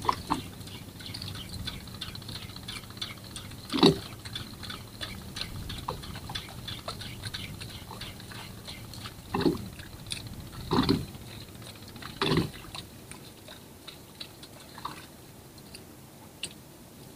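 Sea water lapping and dripping against a small boat's hull, with many small irregular ticks that thin out near the end. Four dull thumps stand out, the loudest about four seconds in and three close together between nine and thirteen seconds.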